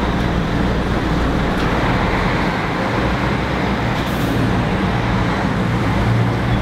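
Busy city-street traffic: a semi-trailer truck hauling a shipping container drives past and away while cars go by, a steady low engine drone under the road noise.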